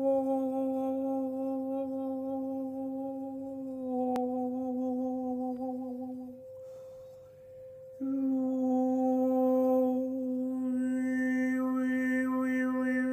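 A man's voice humming one long low drone, breaking off for a breath about six seconds in and coming back about a second and a half later, over the steady ring of a Tibetan singing bowl. Toward the end the voice brings out whistling upper overtones in shifting patterns: overtone singing.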